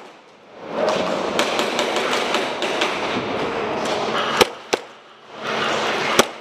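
Airsoft gunfire: three sharp cracks, two in quick succession about four and a half seconds in and one near the end, over a steady rushing noise.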